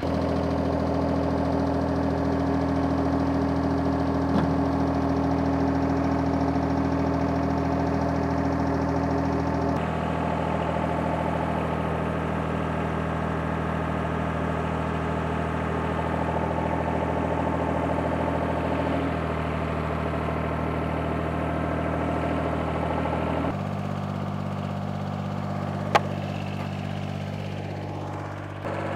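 John Deere compact tractor's engine running steadily at low speed, with a single sharp click about three seconds before the end.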